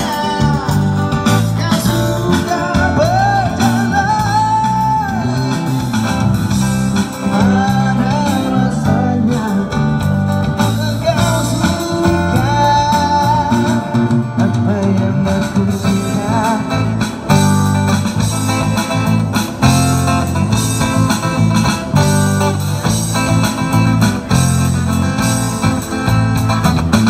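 Live street band playing through an amplifier: guitar over a steady drum beat, with a voice singing the melody.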